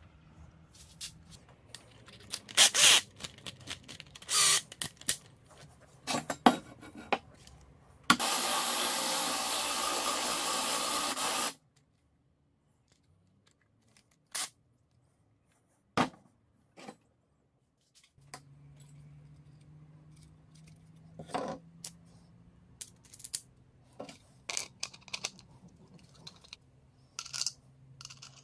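Clicks and knocks of tools and parts being handled, with a Stanley cordless drill running steadily for about three seconds, starting about eight seconds in.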